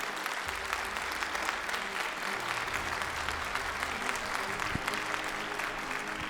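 Audience applauding, a dense steady clapping, over background music with low sustained notes.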